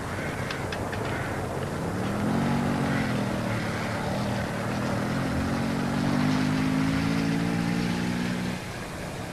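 Moped's small two-stroke engine running as it is ridden, its pitch rising, dipping, then climbing gradually before it drops out near the end, over a steady background noise.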